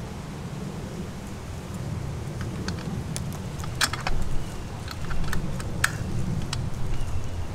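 Scattered small metallic clicks and clinks of stainless-steel rigging hardware (wire rope, eyebolt and turnbuckle) being handled and fitted together by hand, over a steady low rumble.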